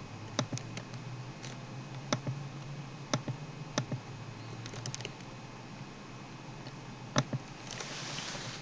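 Scattered clicks of a computer keyboard and mouse, about a dozen sharp clicks at uneven intervals over a low steady background hum, with a short soft hiss near the end.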